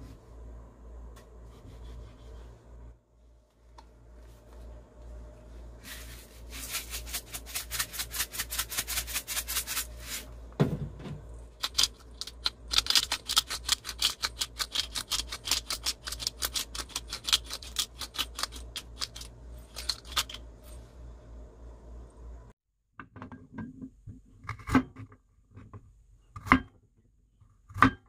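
Hand-twisted spice mill grinding: fast, dry crackling clicks in two long runs, with a single dull knock between them. Then a kitchen knife slicing garlic cloves on a wooden cutting board, a few sharp knocks a second or two apart.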